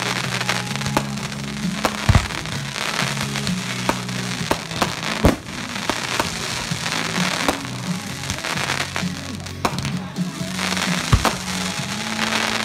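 Fireworks display: a dense, rapid crackle from glittering star bursts, broken by several sharp bangs about two, five and eleven seconds in. Music with sustained low notes plays underneath.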